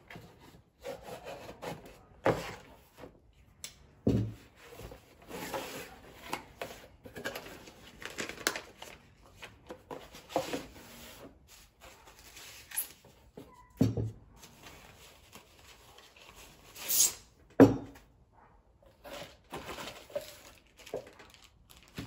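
Unpacking a small cardboard box: cardboard being slit, flexed and opened, a foam or plastic wrapping rustling, and a few sharp knocks as parts are set down on the bench, the loudest knock near the end after a burst of rustling.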